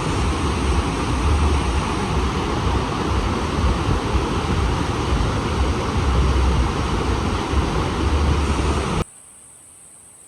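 Steady rush of a large waterfall, with low gusts of wind buffeting the microphone. It cuts off abruptly about nine seconds in, leaving a faint hiss.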